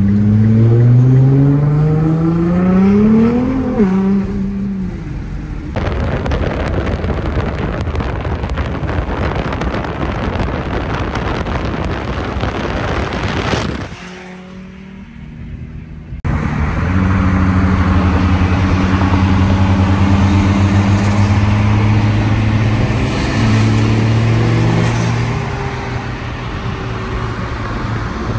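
Turbocharged Mazda Miata (NB) four-cylinder engine under wide-open throttle: the engine note climbs steeply for about four seconds, then drops sharply as the revs fall. A rushing noise without clear pitch follows, then, after a short quieter gap, the engine runs on at a steady pitch with a small change in note partway through.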